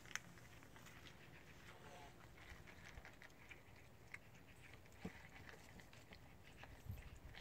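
Cats eating cat food: faint scattered crunching clicks.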